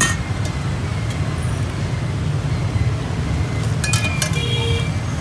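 Steady low rumble of street traffic, with a few sharp metallic clicks near the start and a cluster of clicks about four seconds in, fitting steel tongs knocking against a stainless steel bowl.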